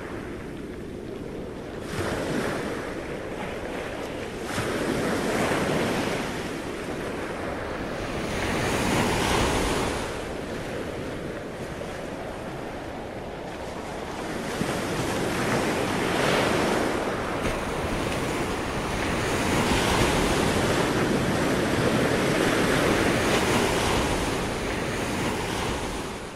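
Ocean surf: waves breaking and washing in, the rush swelling and easing every few seconds, fading out near the end.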